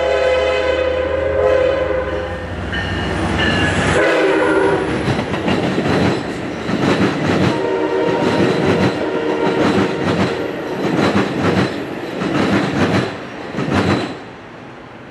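An Amtrak Pacific Surfliner train led by an EMD F59PHI diesel locomotive passing close by. The locomotive's horn sounds a long chord, then a short second blast about three seconds in, over the engine's low drone. Then the passenger cars' wheels click rhythmically over rail joints, a steady run of clicks that fades out near the end.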